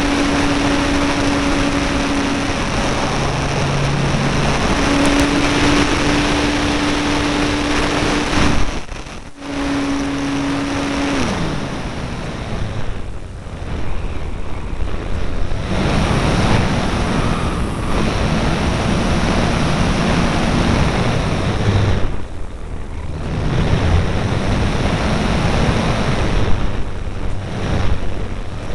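Electric motor and propeller of an E-flite Apprentice RC airplane droning at a steady pitch, with the pitch dropping and rising as the throttle changes: a brief cut about nine seconds in and a slide down soon after, then a lower, rougher drone. A constant rush of wind over the onboard camera's microphone runs under it.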